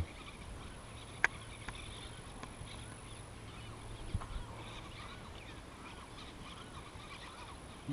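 Many distant birds calling, a steady scatter of faint chirps and short whistles, with one sharp click about a second in.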